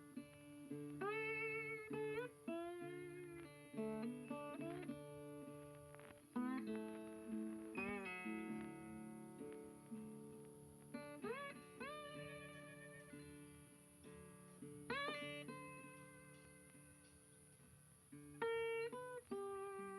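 Background guitar music: plucked notes with string bends and slides over a held low bass.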